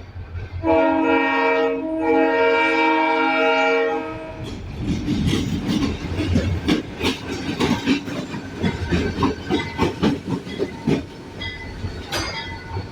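Diesel locomotive air horn sounding two long blasts, then freight cars rolling past with the wheels clacking rapidly over the rail joints.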